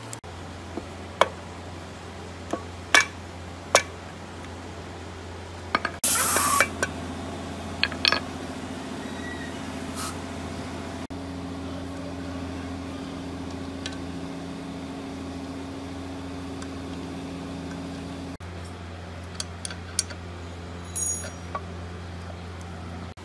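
Metal clinks and taps of engine parts and hand tools being handled while a small four-stroke generator engine is reassembled, over a steady low hum. A short loud hiss about six seconds in, and a quick run of ticks near the end.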